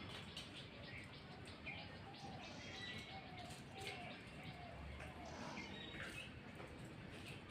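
Faint bird chirps: short high calls scattered every second or so, with a few lower, drawn-out notes between about two and four seconds in.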